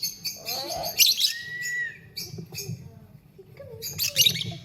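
Lovebird chirping: bursts of rapid, high-pitched chirps about a second in and again near the end, with a short whistled note between them.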